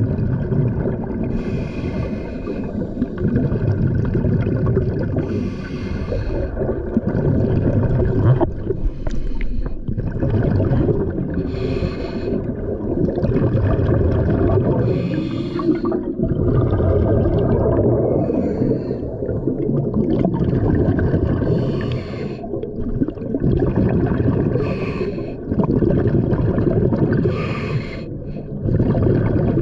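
Scuba diver's regulator breathing heard underwater: bubbly exhalations about every three to four seconds over a steady low rumble of water.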